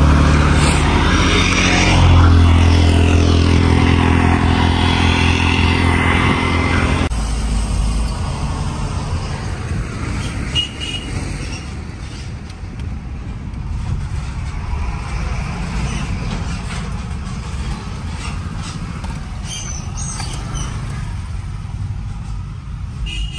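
A motor vehicle's engine running with a steady low hum. About seven seconds in it cuts off abruptly, leaving quieter, even road or traffic noise.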